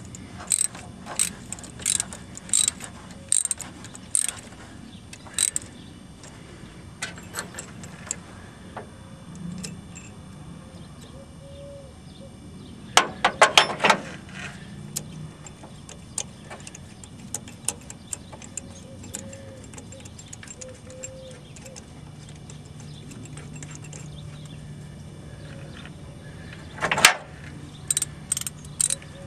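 Ratchet wrench clicking in short strokes as it turns the forcing screw of a gear puller, drawing the crankshaft gear off a Ford 4.9-litre inline-six. The clicks come quickly at first, then more sparsely, with louder bursts about halfway through and just before the end.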